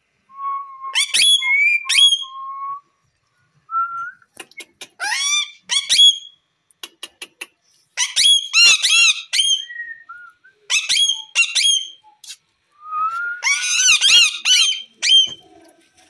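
Indian ringneck parakeets calling: short plain whistles mixed with loud, harsh squawks, in bursts every second or two, the longest and loudest run near the end.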